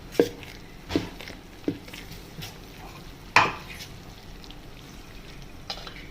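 A utensil stirring thick batter in a bowl, knocking against the bowl several times, with the loudest knock about three and a half seconds in.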